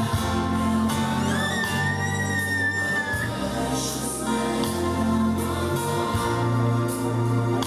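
Gospel song with singing over a steady bass line; a singer holds one high note for about two seconds, starting about a second and a half in.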